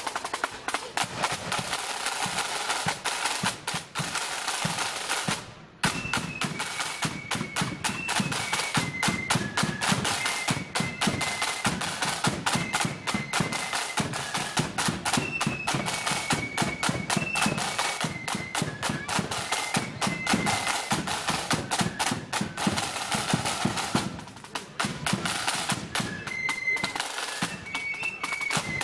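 Marching flute band playing: rapid drumbeats throughout, with high flutes carrying the tune from about six seconds in. The flutes drop out for a couple of seconds near the end and then come back in.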